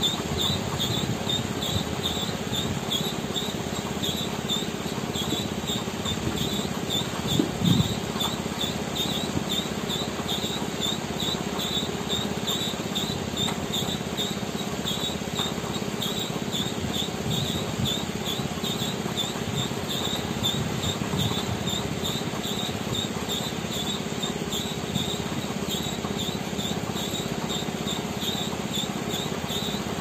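High chirping repeating about three times a second, like a cricket, over the steady low drone of a concrete mixer truck at work; a short louder thump about seven and a half seconds in.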